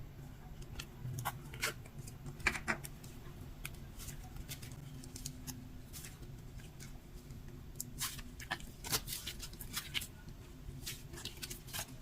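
Butter slime being squished and stretched by hand, making soft, irregular clicks and small pops in clusters.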